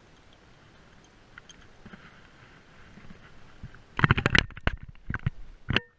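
Faint background, then about four seconds in a quick run of loud, close knocks and rattles, a few more just after, and a very short tone near the end.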